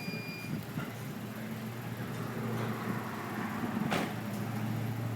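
A car engine idling steadily, with one sharp knock a little before the end.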